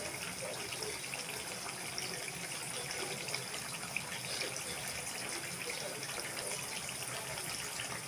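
Cut potato strips deep-frying in hot oil: a steady sizzle with many small crackles.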